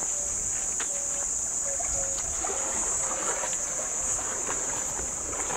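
Insects shrilling steadily at a high pitch, with scattered faint clicks and cracks and a short run of brief, even tones about a second in.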